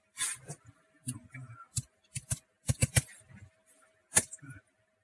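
Irregular sharp clicks and brief handling or rustling noises, about eight clicks in all with the loudest near the end, over a faint steady hum.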